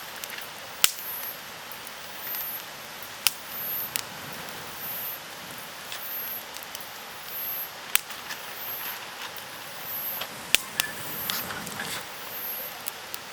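Wood campfire crackling, with sharp pops every few seconds over a soft background hiss. A faint high chirp repeats about once a second.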